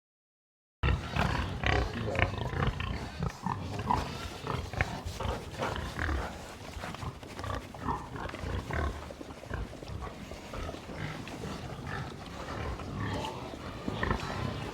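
Pigs grunting: many short, irregular sounds overlapping, starting about a second in.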